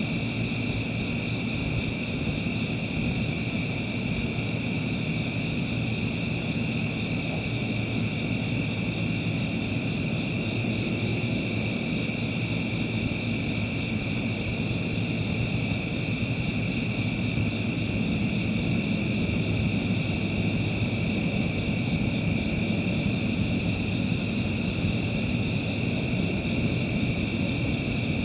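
Steady night chorus of insects, several high-pitched droning tones layered together, one with a faint regular pulse, over a low steady rumble.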